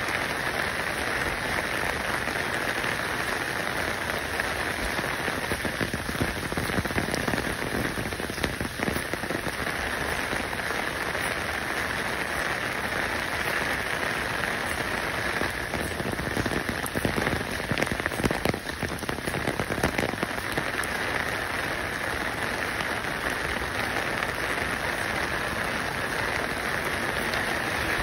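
Steady rain: an even hiss of dense fine patter, a little rougher and louder in spells partway through.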